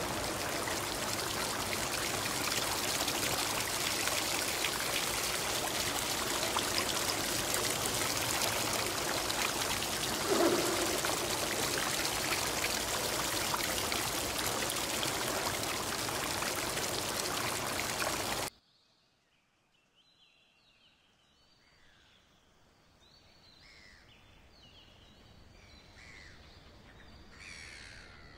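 Water running and pouring steadily, as from a fountain spilling into a pool. The water cuts off suddenly about two-thirds of the way through, and faint, short, repeated bird calls follow, growing louder toward the end.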